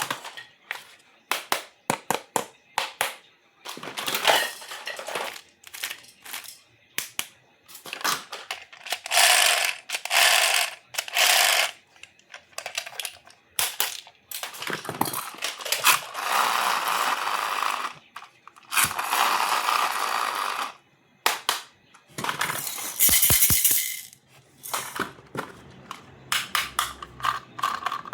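Plastic toy playset pieces being unpacked and handled: a quick run of clicks, knocks and rattles, broken by several longer rustling bursts lasting a second or two.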